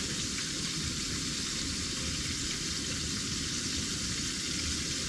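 Fish frying in hot canola oil in a skillet on a single-burner propane stove: a steady sizzle.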